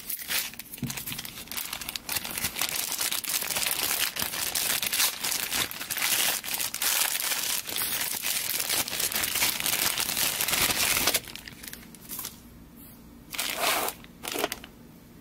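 Dense crinkling and crackling, like wrapping being handled, until about eleven seconds in. After that it is quieter, with a few short rustles.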